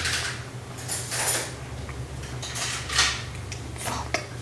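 Light handling sounds of salt and a small container: a few short scrapes and rustles, loudest about three seconds in, over a steady low hum.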